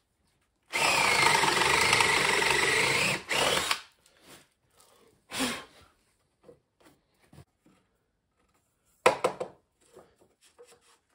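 Cordless drill running a paddle bit into a wooden beam for about three seconds, its motor whine sagging in pitch under load and then rising again before it stops. A few sharp knocks follow near the end.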